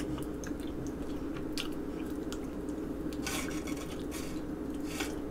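Biting and chewing chicken wings, with small wet mouth clicks and short crunchy bursts about three seconds in and near the end, over a steady low hum.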